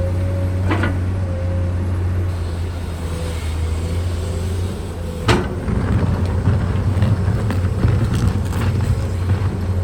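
Komatsu PC210 excavator's diesel engine running steadily, with a clank about a second in and a sharp metallic knock about halfway through. After the knock the engine sound grows rougher and a little louder.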